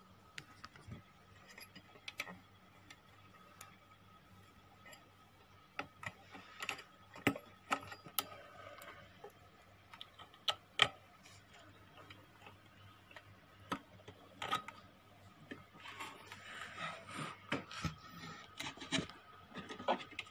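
Irregular small clicks and knocks of hands handling an audio amplifier's circuit boards, wires and plug-in connectors, with a few sharper clicks among them. A faint steady whine and low hum run underneath.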